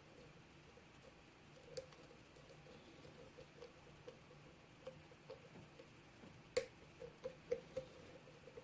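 Faint, irregular clicks and ticks of a lock pick working the pins of a 7-pin lock under tension, with one sharper click about two-thirds of the way in and a few more close after it. The lock is sitting in a deep false set.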